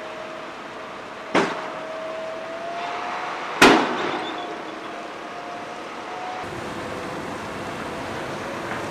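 Heavy-haul truck with a multi-axle low-loader rolling slowly past, its engine running steadily, with two sharp loud bangs about two seconds apart, the second the louder.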